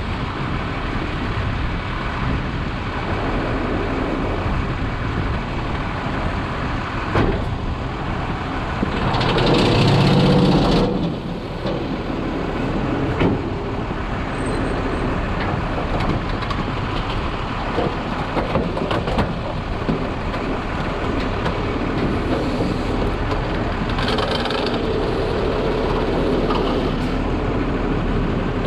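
New Way automated garbage truck's hydraulic packer cycling in the hopper, shoving a futon into the body over the truck's running engine, with a louder surge about ten seconds in and another near the end.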